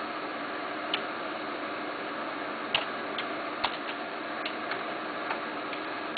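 Light, irregular clicks and ticks of a stack of thick trading cards being shifted in the hand, the sharpest about a third and halfway through, over a steady background hiss.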